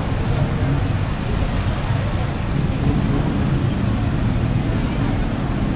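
Busy city street traffic: motorcycles and cars driving past in a steady low drone of engines and tyres, with the voices of a crowd mixed in.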